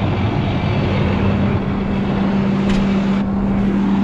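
Case IH Magnum 340 tractor's diesel engine idling, a steady low hum.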